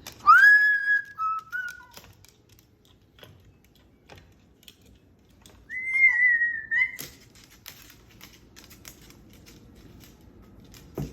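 A pet parrot whistling twice: first a whistle that rises, holds and then steps down in pitch, then about five seconds later a second, higher, steady whistle. Light clicking taps are scattered between the whistles.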